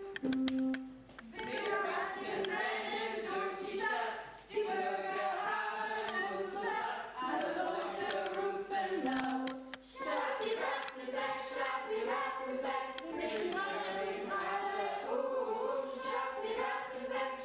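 A group of school pupils singing a song together as a chorus, with short breaks about four and a half and ten seconds in.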